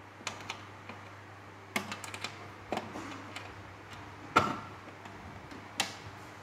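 Patch cord plugs being pushed into and worked in the terminal sockets of an op-amp trainer panel: a run of irregular light clicks and knocks, with cord rustle. The sharpest knock comes about four and a half seconds in.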